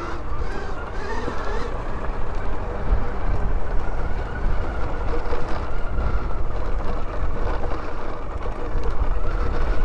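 NIU XQi3 electric motorcycle riding a dirt trail: a faint steady electric-motor whine under heavy wind noise on the microphone and the rumble of tyres on dirt.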